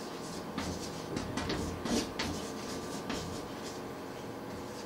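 Chalk writing on a blackboard: short, irregular scratches and taps as a line of words is written.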